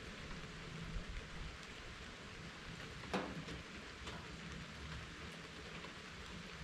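Steady rain falling, an even hiss, with a few sharper drops tapping close by; the loudest comes about halfway.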